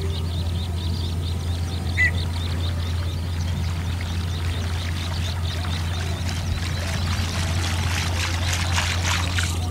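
Water splashing and trickling over a steady low rumble, with a brief chirp about two seconds in and a spell of crackling splashes near the end.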